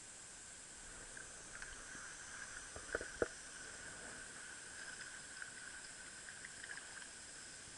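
Faint steady hiss with a thin whir and scattered small clicks; two sharper clicks come close together about three seconds in.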